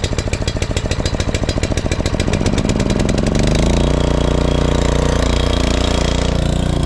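Brush mower's small engine running with a quick, even chuffing, then speeding up about three seconds in and holding a steady, higher-speed run.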